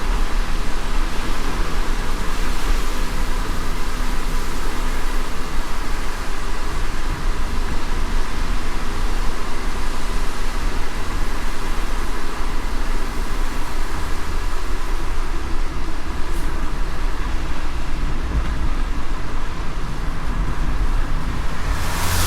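Car driving on a wet road in the rain: a steady low road rumble under an even hiss of rain and tyre spray, with a brighter rush swelling near the end.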